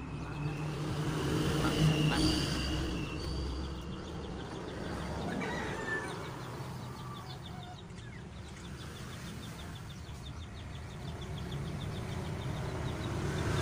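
A motor vehicle's engine passing, louder about two seconds in and again near the end, with short bird chirps early on.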